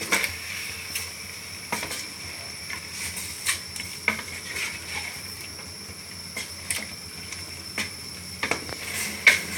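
A spoon stirring chicken pieces in a cooking pot of masala, giving irregular clinks and scrapes against the pot over a steady hiss from the hot pan.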